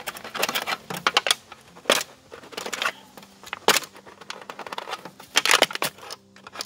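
Thin aluminum foil pan crinkling and crackling as it is turned over and a nail is pushed through it and wiggled around to punch holes. The sound is a string of irregular sharp crackles, loudest about two, three and a half, and five and a half seconds in.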